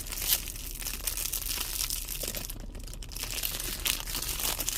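Crinkling and rustling of plastic, dotted with small clicks, as a fish-shaped squeeze fidget toy is handled and its loose beads are pushed at.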